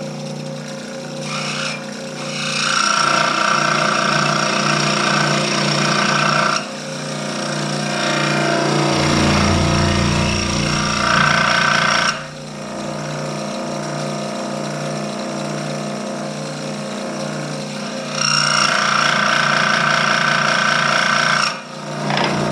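Benchtop scroll saw running steadily, its blade reciprocating. It grows louder in three stretches of a few seconds as the blade cuts through a wooden piece, each cut ending with a sudden drop back to the plain running sound.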